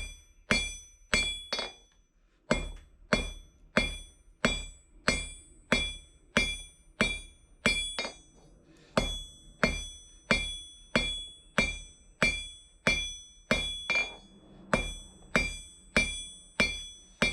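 Hand hammer forging hot 10 mm square bar into a leaf on a VEVOR 66 lb London pattern anvil: steady blows about two a second, each followed by a clear high ring from the anvil. The hammering pauses briefly twice.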